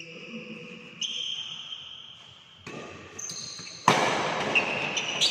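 Badminton play on an indoor court: a racket strikes the shuttlecock several times with sharp hits, the loudest a little before the end, over high squeaks of court shoes on the floor.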